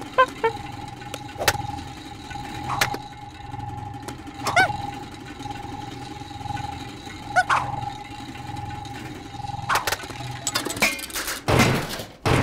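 Cartoon sound effects: a steady humming drone with scattered sharp clicks and a few quick pitch swoops, then a rapid run of loud knocks and thuds near the end.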